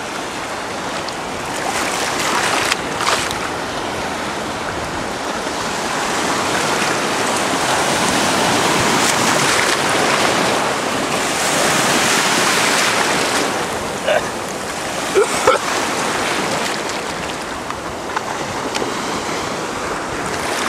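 Sea waves washing and breaking in the shallows, a continuous rush that swells louder about halfway through, with a few brief sharp splashes or knocks.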